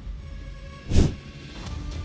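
Background music with one loud thump about halfway through.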